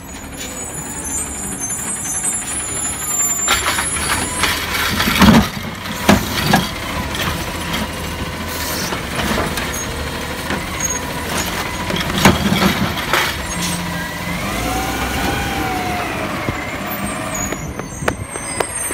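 Automated side-loader garbage truck emptying a curbside cart: engine running as the hydraulic arm lifts and tips the cart, with loud bangs as the cart is shaken out, about five, six and twelve seconds in. A rising and falling whine follows later on.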